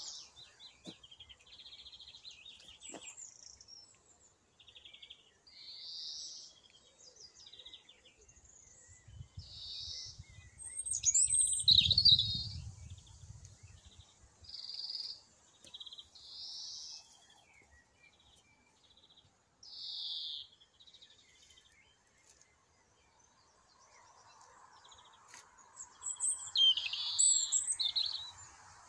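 Garden songbirds singing: short, high, bright phrases from several birds every second or two, loudest about eleven seconds in and near the end. A brief low rumble comes about twelve seconds in.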